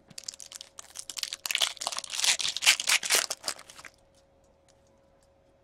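A foil trading-card pack being torn open by hand, the wrapper crinkling loudly, strongest in the middle and stopping about four seconds in.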